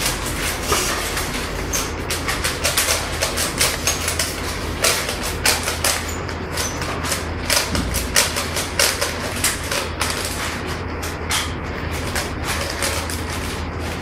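Several Rubik's cubes being turned fast at once: a dense, irregular run of plastic clicks and clatter, over a steady low hum.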